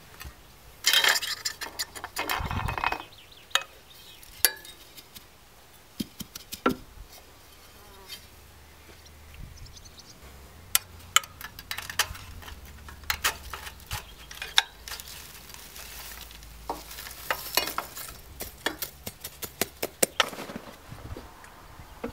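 Metal clinks, taps and scrapes at the firebox of a miniature live-steam locomotive as the coal fire is raked out and dropped onto the track, with a longer scraping burst about a second in and many sharp clinks later on.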